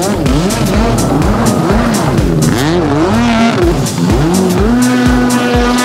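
Electronic background music with a steady thumping beat and a wavering, sliding synth line.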